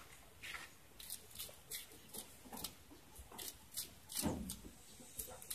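Faint, crisp snapping and clicking as banana blossom bracts are peeled off and cut with a knife over a steel bowl, about two or three clicks a second. A duller, lower knock comes about four seconds in.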